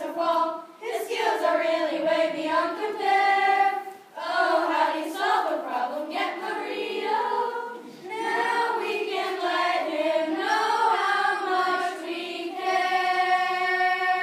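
A children's choir singing together, ending on a long held chord near the end.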